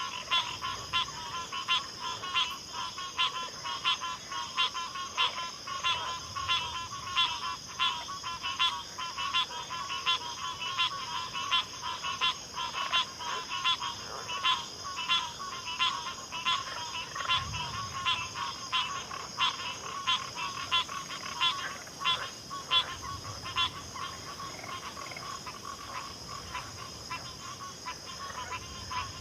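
Chorus of frogs calling at a backwater, with a rapid, regular call about twice a second over a continuous high-pitched insect-like drone. The louder calls fade in the last few seconds.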